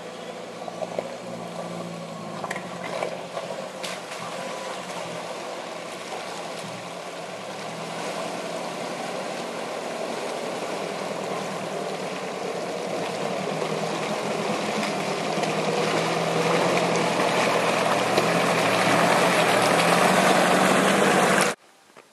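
Toyota Hilux engine running at a steady low pitch as the truck wades through a creek crossing, with water rushing and sloshing around it. The sound grows steadily louder as the truck comes closer, then cuts off suddenly near the end.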